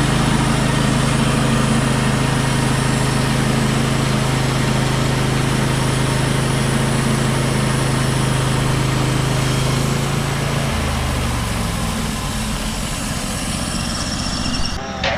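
Portable sawmill's engine running steadily, then dropping to a lower, slower run about eleven seconds in.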